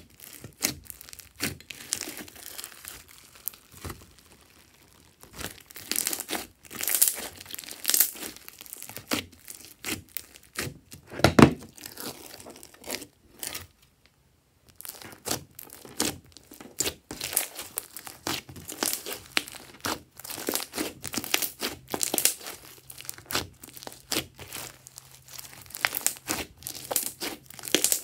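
Crunchy floam slime, clear slime packed with foam beads, squeezed and kneaded by hand. It gives dense, irregular crackling and popping as the beads are pressed and the slime stretches, with a short near-silent break about halfway through.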